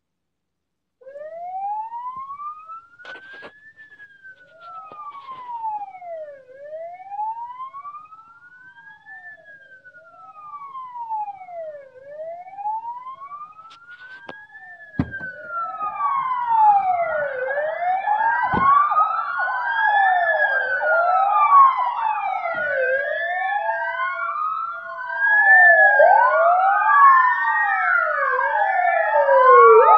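Ambulance sirens wailing: one slow rising-and-falling wail starts about a second in, and from about halfway several more join out of step with it, the combined sound growing louder near the end.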